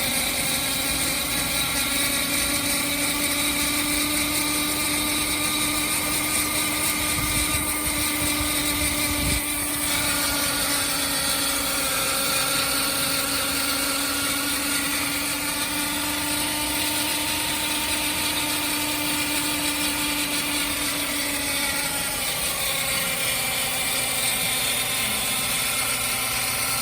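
Abnormal whine from the automatic transmission of a Suzuki Wagon R (MH21S): a steady pitched tone over the vehicle's running noise, its pitch drifting slightly up and then down. A couple of brief low thumps come about eight and nine seconds in.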